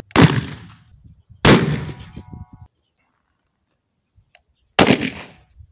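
Three single shots from an AR-style rifle, the first two about a second apart and the third some three seconds later. Each is sharp and trails off in a short echo.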